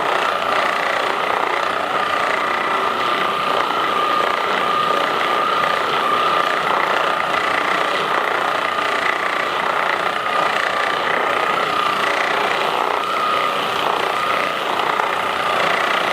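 Handheld percussion massage gun running steadily, its motor giving a constant high whine over a fast buzzing hum.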